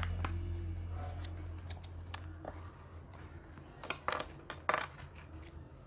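Wooden ice cream sticks being handled and knocked together, light clicks and clatters with the clearest ones about four and nearly five seconds in. Background music fades out over the first couple of seconds.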